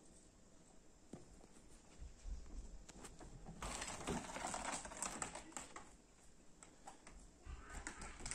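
Kittens' claws scratching and catching on rolled woven rugs as they climb them: a patter of small scratches and clicks, busiest in the middle.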